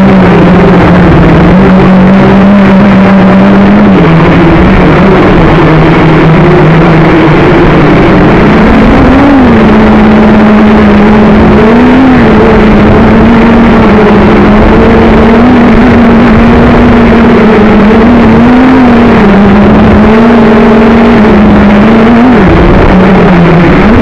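JJRC X1 quadcopter's brushless motors and propellers humming steadily under heavy wind noise on the onboard camera's microphone. The pitch rises briefly several times as the throttle is worked against the gusts, and it dips sharply near the end.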